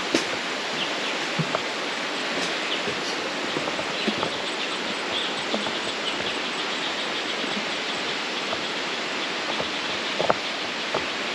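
Steady rush of a waterfall and its stream, with scattered footsteps on the trail and a faint rapid chirping through the middle.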